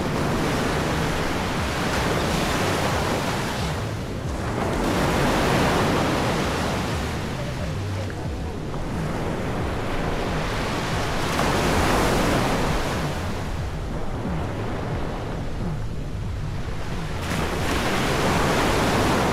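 Ocean surf breaking on a beach: a continuous wash of waves that swells and eases every several seconds.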